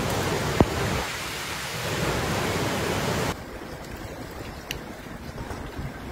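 Steady rushing noise of water, with one sharp knock about half a second in. About three seconds in it cuts suddenly to a quieter, thinner rush with a few faint clicks.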